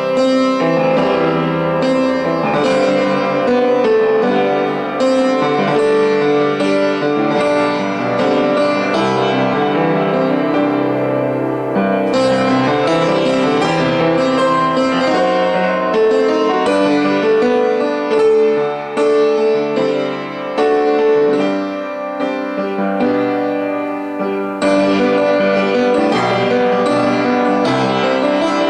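Instrumental music led by keyboard: an arrangement of an old, well-known hymn tune set against a playful accompaniment, moving through several sections.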